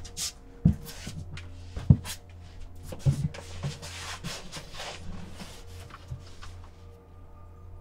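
Soft footsteps and shuffling with scattered light knocks and clicks over a low, steady hum.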